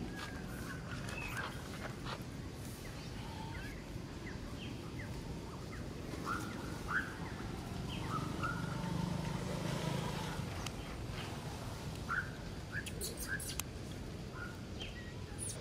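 Short, high rising chirps, one every second or so, over a steady low background rumble.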